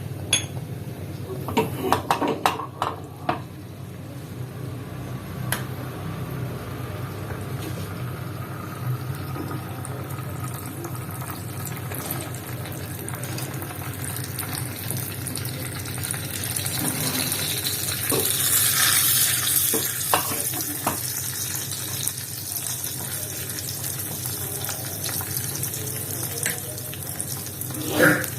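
Tempering seeds and dals frying in hot sesame oil in a pan, a steady sizzle over a low hum that swells into a louder hiss past the middle. A few sharp clinks in the first few seconds and a knock near the end.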